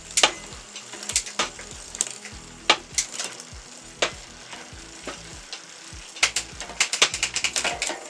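Spinning bicycle rear wheel and drivetrain giving irregular sharp clicks and ticks, which come faster and closer together near the end.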